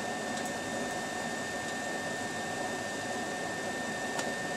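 BioLite wood-burning camp stove running, its built-in fan blowing steadily with a thin whine, under a small kettle of water coming up to a rolling boil. A few faint ticks sound over the steady noise.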